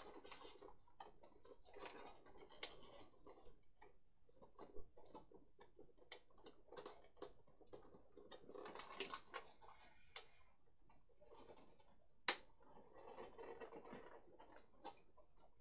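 Clear plastic parts of a Hasbro Beyblade Burst Battle Tower stadium being handled and snapped together: scattered light clicks and rattles, with a sharp snap about twelve seconds in.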